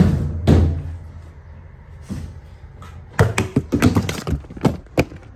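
Objects being handled and set down: a heavy thump at the start and another about half a second later, then a quick run of sharp knocks and clatter about three to five seconds in.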